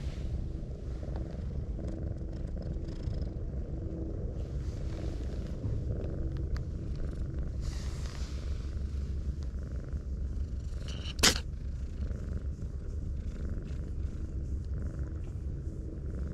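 Brown tabby cat purring steadily as it is stroked on the cheek and chin, with one sharp click about two-thirds of the way through.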